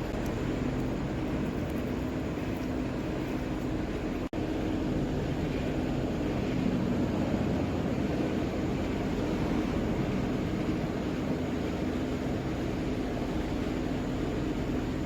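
Steady rumbling background noise with a low hum running through it. It cuts out for an instant about four seconds in.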